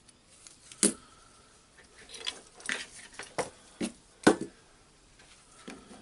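Handling noise from resoldering a wire onto a cordless drill's DC motor terminal: about half a dozen sharp clicks and knocks, the loudest a little past four seconds in, with light scraping between them.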